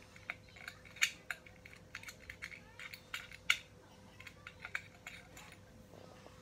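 Small, irregular metallic clicks and taps as a model railway car is handled, its metal bogies and wheelsets knocking and pivoting under the fingers; the sharpest click comes about three and a half seconds in.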